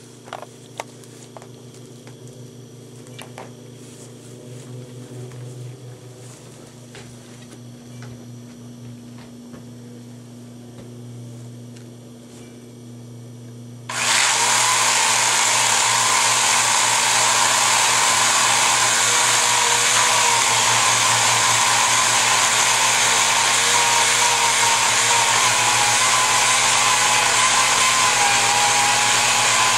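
A low steady hum with a few clicks, then a chainsaw starts suddenly about halfway through and runs loud and steady at high revs, cutting into a tree being felled.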